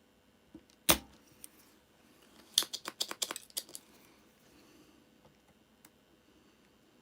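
Sharp metallic clicks and clinks of small tools being handled at a soldering bench: one loud click about a second in, then a quick run of about ten lighter clicks.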